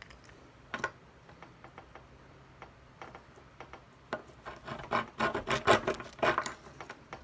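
A plastic bath toy being handled and taken apart by hand: a few scattered clicks, then about four seconds in a couple of seconds of rough rubbing and scraping.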